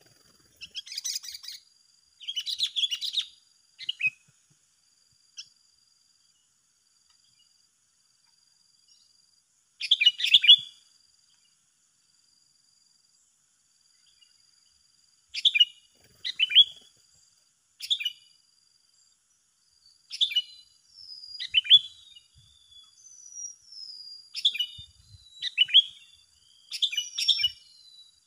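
Sooty-headed bulbuls calling in short bursts of chirps. After a gap of several seconds, the calls come more and more often, with quick rising and falling notes, in the last third.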